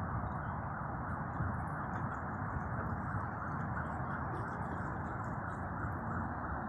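Steady wind noise on the microphone, an even rush that changes little.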